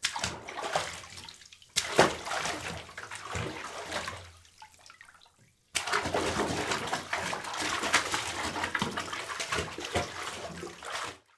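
Water running and splashing in two stretches. The first fades away about four seconds in. The second starts suddenly near the middle and cuts off just before the end.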